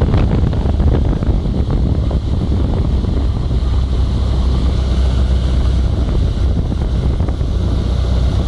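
Outboard motor running steadily at speed, pushing a boat along, with heavy wind buffeting on the microphone and the rush of water from the wake.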